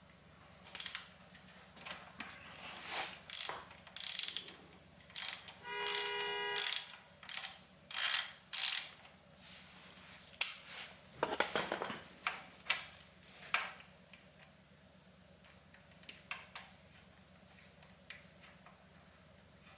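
Ratchet socket wrench clicking in repeated bursts as drain fittings are loosened for an oil change, with a brief metallic ring about six seconds in. Only a few faint ticks follow near the end.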